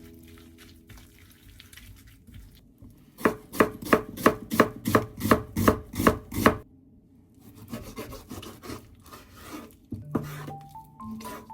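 Kitchen knife chopping on a cutting board: about a dozen quick, evenly spaced strokes, then softer scraping and rustling.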